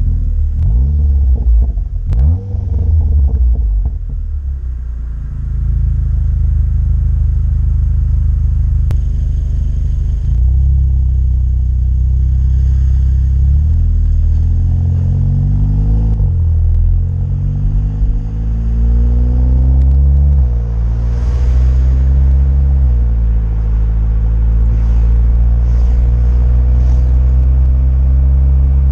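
Volkswagen Golf 7 GTI Clubsport's turbocharged 2.0-litre four-cylinder heard at the tail through a 76 mm Friedrich Motorsport cat-back exhaust with pre-silencer. It idles at a standstill with a few brief revs near the start, then pulls away, the note rising through the gears and dropping back at three upshifts in the second half.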